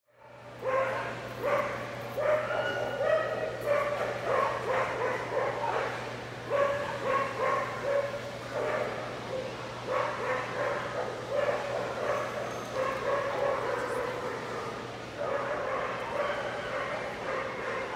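Dogs barking and yipping over and over, starting about a second in, with a steady low hum underneath.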